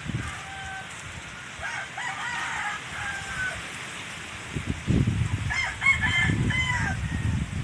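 Roosters crowing, a few crows, with a longer burst near the end. From about halfway through, gusty low rumble of wind buffeting the phone microphone is the loudest sound.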